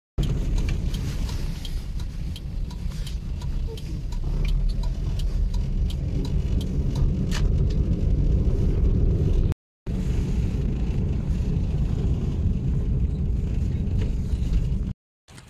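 Car driving, with a steady low rumble of engine and tyres heard from inside the cabin. The sound cuts out to silence for a moment twice.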